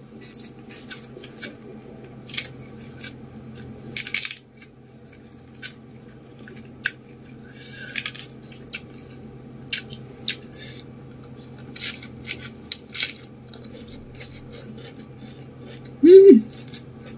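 Close-up eating sounds of fried rice vermicelli eaten by hand: wet mouth clicks and chewing, with scattered sharp clicks of fingers picking at the noodles on the tray. Near the end comes one short, loud pitched sound from pursed lips.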